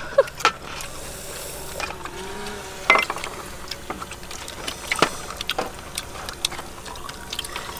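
Scattered clicks and taps of cooked snail shells being handled and picked at with sticks over metal trays, with one sharper click about three seconds in.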